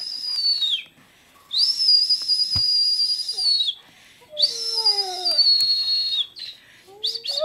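Long, high, steady whistle tones, about two seconds each and three of them, with a dog howling along in a lower voice that slides down in pitch during the third.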